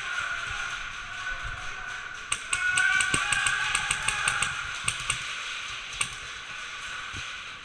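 Airsoft guns firing in semi-auto: a run of sharp clicks about four or five a second for roughly three seconds, then a couple of single shots.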